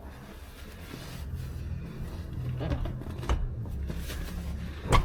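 A folding third-row seat being shifted and lined up with grooves in a vehicle floor: low scraping and shuffling with a few light knocks, and a thud at the very end.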